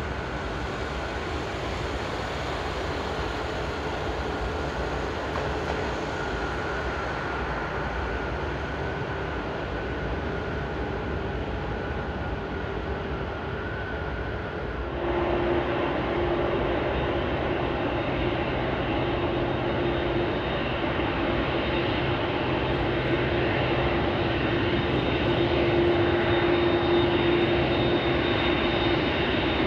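Boeing 747 jet engines running at low power as the airliner taxis, a steady whine. About halfway through it jumps louder, with a stronger high whine on top.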